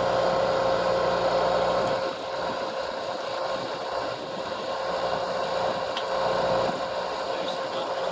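An engine running steadily at idle, with a steady whine over it; its low hum drops away about two seconds in.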